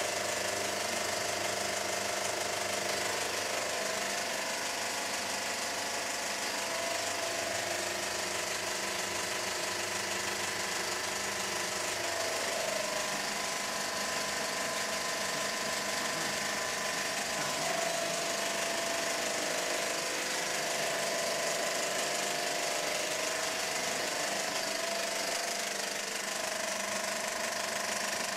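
35 mm cinema film projector running with a steady mechanical noise that does not change.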